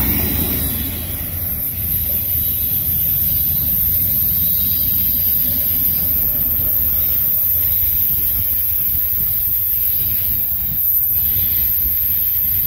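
Freight train rolling away down the track: the close rush of its last autorack car dies down within the first second or so, leaving a steady low rumble.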